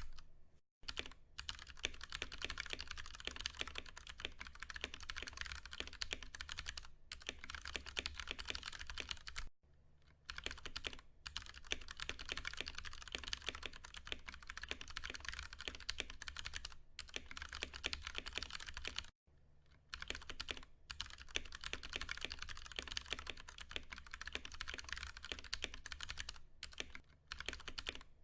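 Fast, continuous typing on a Ducky One 2 Mini mechanical keyboard with Cherry MX Brown switches: a dense run of key clacks. Brief pauses come every few seconds, the longest about a second each, near a third and near two-thirds of the way through.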